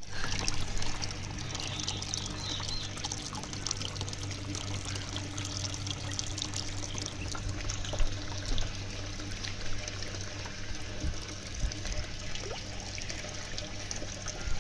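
Water running from a garden hose into a plastic tub of water, a steady pouring splash, over a steady low hum.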